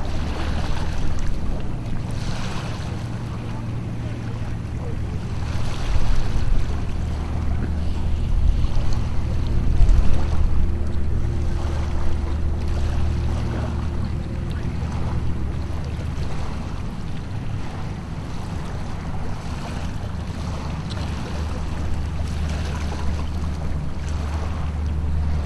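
Wind buffeting the microphone at the waterside, with small waves washing in. A low steady rumble runs underneath, and the noise swells every few seconds.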